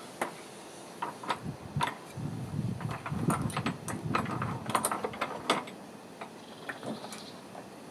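Clicks, taps and rubbing of clamp hardware being handled and threaded into threaded inserts while the front part of a pipe-clamp vise is fitted. The sounds are irregular, busiest from about two to five seconds in.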